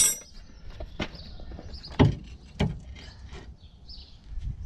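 Several sharp metal knocks and clunks of hand tools and suspension parts at a car's front hub, the loudest about two seconds in.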